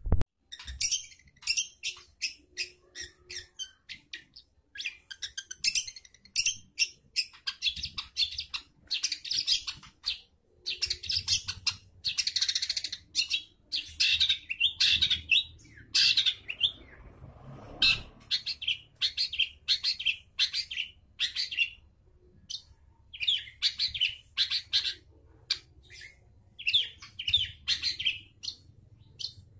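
Long-tailed shrike (cendet) singing: rapid runs of short, sharp, high-pitched chattering notes in phrases broken by brief pauses, with a single sharp click right at the start.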